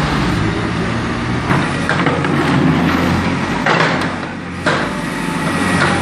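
JCB 4CX backhoe loader's diesel engine running steadily, with its backhoe bucket scraping and knocking on broken asphalt and rubble several times.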